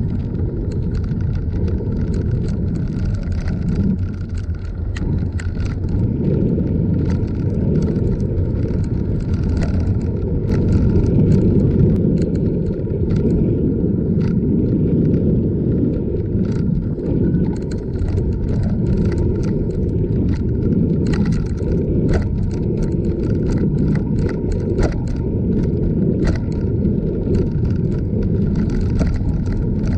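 Bicycle rolling along a paved path, heard from on the bike: a steady low rumble with frequent small rattles and clicks.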